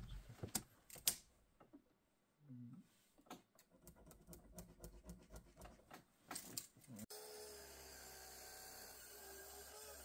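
Faint, irregular clicks and knocks for about seven seconds, then a sudden switch to a faint steady hum with a few held tones.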